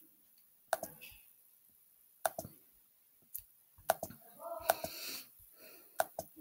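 Computer mouse clicking: about six sharp, separate clicks spread over the few seconds, with a short stretch of quiet voice about four and a half seconds in.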